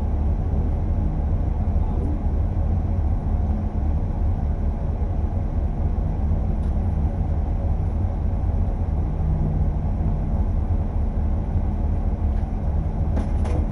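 Folk-rally car's engine idling steadily, heard from inside the cabin as a low, even rumble. A few sharp clicks come just before the end.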